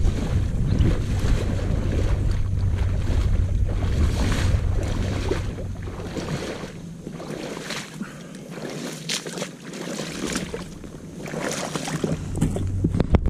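Wading steps sloshing through shallow marsh water, a splash about every second, growing louder as the wader comes close. Wind rumbles on the microphone, easing off in the middle.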